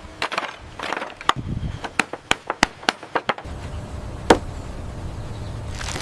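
A run of sharp knocks, about three a second, then a steady low rumble with one loud knock a little after the middle.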